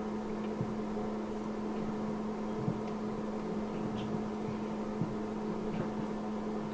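Steady background hum holding one constant low tone, with a few faint ticks.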